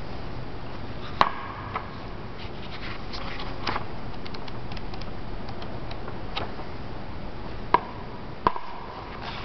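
Sharp knocks and small taps as a hardcover sketchbook is opened and handled on a wooden stool: four louder knocks, some with a short ring, among lighter ticks, over a steady hiss.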